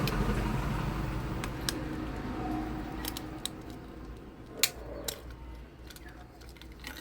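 Scattered sharp clicks from a Nokia 105 feature phone's plastic housing being pried open with an opener tool, over a steady background noise that fades away during the first few seconds.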